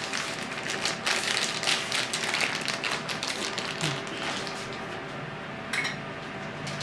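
Rapid light taps and scrapes of a spoon against a container for about three and a half seconds as grated Parmesan is scooped, then a few single clicks.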